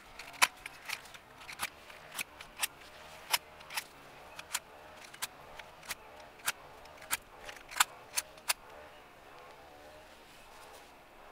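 A series of short, sharp clicks, about two a second and unevenly spaced, stopping about eight and a half seconds in.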